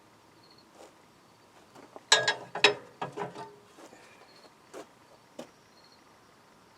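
Metal tools and parts clanking and clicking as an engine is taken apart by hand. A quick cluster of ringing clanks comes about two seconds in, followed by a couple of single clicks.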